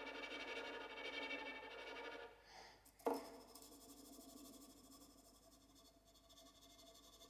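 The quiet close of an experimental new-music piece. Several held tones sound together and fade about two seconds in. About three seconds in comes a single sharp struck note, and its tones ring on softly and die away.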